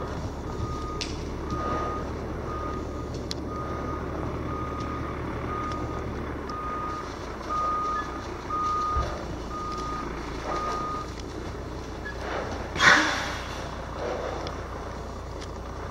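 A vehicle's reversing alarm beeping steadily at one pitch, about one beep a second, then stopping about eleven seconds in, with a low steady hum under it for the first half. Near the end, a short loud burst of noise.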